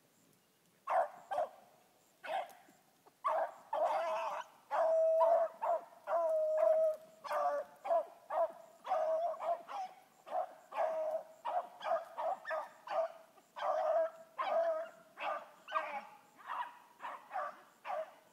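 Dog barking over and over at about one and a half barks a second, with a few longer drawn-out bays in the middle of the run.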